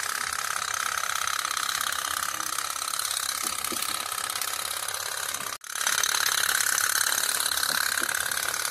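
Candle-heated pop-pop toy steam boat running, giving a rapid, even popping as the heated water in its pipes is driven out as steam. The popping breaks for an instant a little past halfway.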